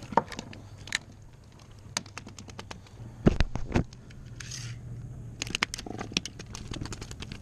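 A landed tautog on wooden boardwalk planks, slapping the boards twice in quick succession a little past three seconds in. Many light clicks and ticks of the fishing rig, leader and hook being handled.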